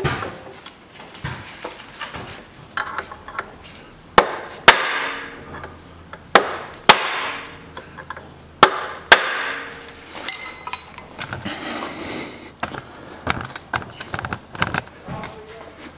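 Hammer blows on metal: three pairs of sharp strikes, the first about four seconds in, each pair about half a second apart, then a brief metallic ring and lighter clinks. The blows are meant to drive the Peugeot 407's right driveshaft and its intermediate-shaft support bearing out of the bracket, and the shaft won't budge.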